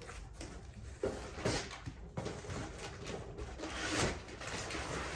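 Packaged supplies being handled while a box is unpacked: plastic and cardboard rustling, with a few soft knocks about a second in, a second and a half in and near four seconds.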